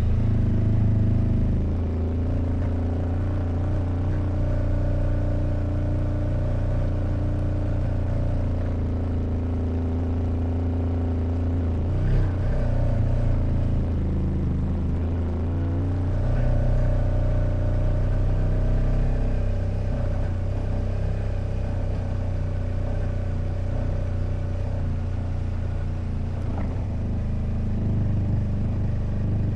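Kawasaki Versys motorcycle engine running steadily under way on a trail, its pitch dropping and then climbing again about halfway through as the rider eases off and gets back on the throttle.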